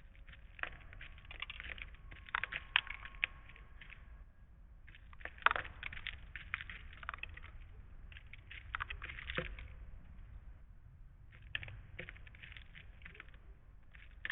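Irregular clusters of small, sharp taps and clicks at a bird feeder, made by creatures pecking and moving about on it, over a faint low hum.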